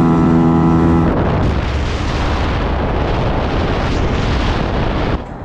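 A motorcycle engine holds a steady high note at speed. About a second in, it gives way to a loud, even rush of wind buffeting the microphone on a fast-moving motorcycle, with the engine buried under it.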